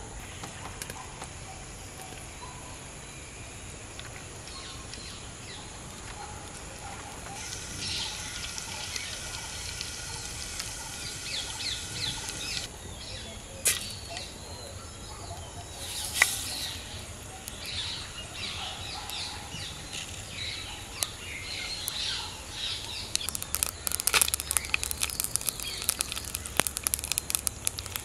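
Hot oil sizzling and crackling in a clay pot as spices and then whole dried red chillies fry, the crackle growing dense and louder in the last few seconds. Birds chirp in the background, with two sharp pops about halfway through.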